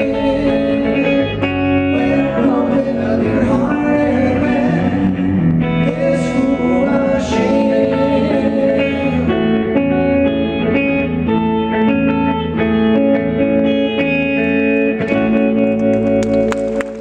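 Live band music: electric guitar and bass guitar playing under two male voices singing, the song winding down to a held final chord near the end.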